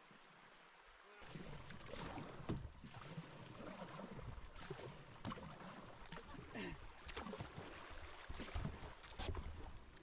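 Canoe being paddled on a river: irregular paddle strokes and splashing water, starting suddenly about a second in after faint flowing water.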